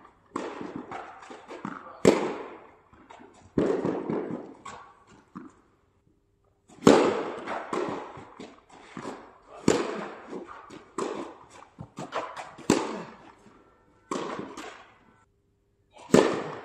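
Tennis rally: a ball struck by rackets and bouncing on the court, with sharp hits a second or two apart and fainter bounces between them, each followed by a short echo.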